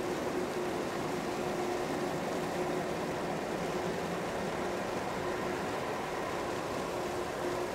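Boeing 767-300ER's twin turbofan engines running as the airliner taxis: a steady, even jet drone with a faint steady hum running through it.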